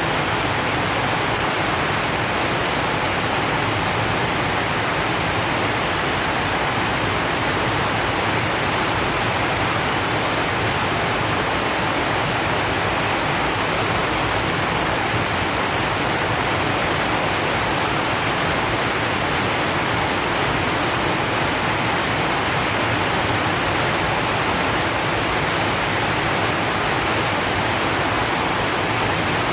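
Steady heavy rain on a zinc sheet roof, a dense even hiss with no single drops standing out.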